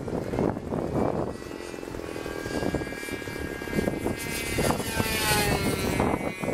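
Radio-controlled model airplane's motor buzzing overhead, its pitch falling as it passes by about five seconds in, with wind buffeting the microphone.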